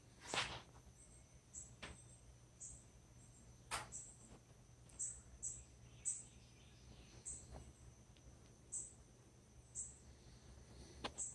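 Near silence with faint short high-pitched chirps about once a second, and a few soft knocks, the clearest just after the start.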